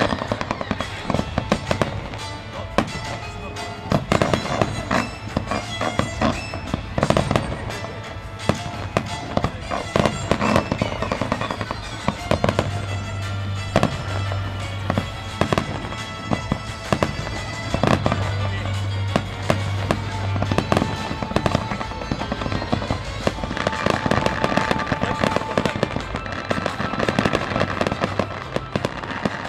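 Aerial fireworks finale barrage: many shells bursting in rapid, overlapping bangs with crackling between them, without a pause.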